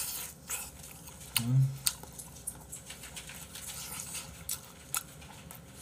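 A person chewing soft fried egg: scattered sharp wet mouth clicks, with a short closed-mouth hum about one and a half seconds in.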